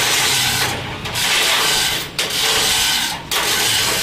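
Chain hoist hauled by hand, its chain rattling through the hoist in four pulls of about a second each, with short pauses between them.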